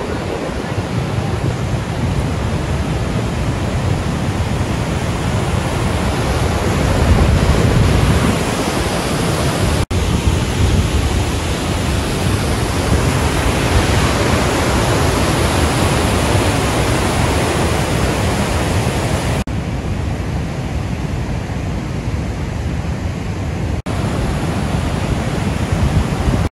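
Loud, steady rush of fast-flowing water from the Niagara River, with a brief break about a third of the way in and a softer, duller stretch near the end.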